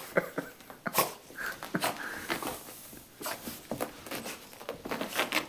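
A small dog, wet from a bath, rolling and wriggling on a carpet: irregular scuffling and rubbing of fur against carpet, with a couple of brief snuffles or squeaky noises from the dog.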